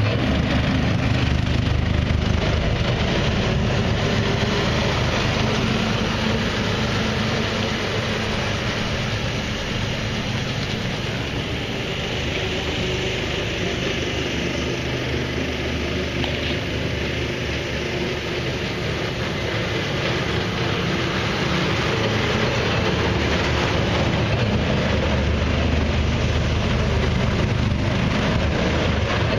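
Engine of a six-wheel Jiger ATV running steadily as it drives. It dips a little about a third of the way in and comes back up near the end.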